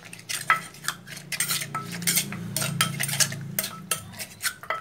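Metal spoon clinking and scraping against a clay mortar as chopped som tam ingredients are stirred and mixed: a quick, irregular run of sharp clinks, over a low hum that fades near the end.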